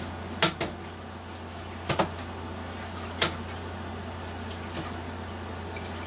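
A handful of sharp knocks and clacks from mopping, the mop and its handle bumping the floor and wooden cabinetry, two close pairs and then a single knock, over a steady low hum.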